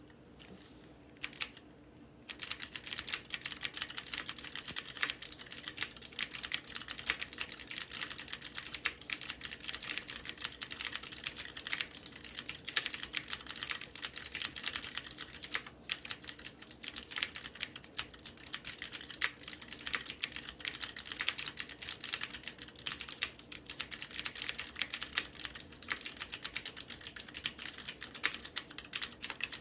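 Fast, continuous typing on a Cherry G80-3870 (MX Board 3.0S) mechanical keyboard with clicky Cherry MX Blue switches, their springs lubricated with Krytox 105 and the switches fitted with films to damp spring noise. A lone keystroke comes about a second in, and steady rapid typing starts about two seconds in.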